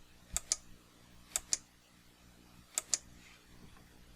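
Computer mouse clicking: three pairs of sharp clicks about a second apart, a button being pressed again and again to subdivide a Blender Multiresolution modifier.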